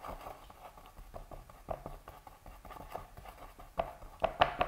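Paintbrush working paint on a palette: a run of irregular small taps and clicks, growing louder near the end.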